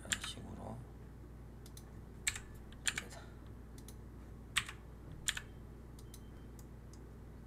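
Computer keyboard keys and mouse buttons clicking: about six short, sharp clicks at irregular intervals, the loudest right at the start and a close pair near three seconds and again near five seconds, over a faint steady low hum.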